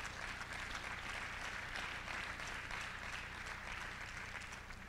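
Audience applauding: a steady patter of many hands clapping that fades away near the end.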